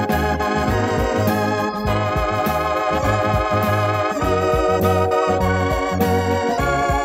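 Instrumental background music: held chords over a pulsing bass line that changes note every fraction of a second.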